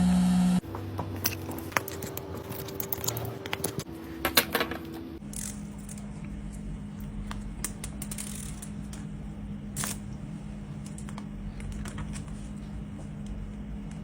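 Sharp clicks and taps of small hand tools working on a tablet's glass and frame, several in quick succession during the first few seconds. After that, a steady low hum with only an occasional faint click.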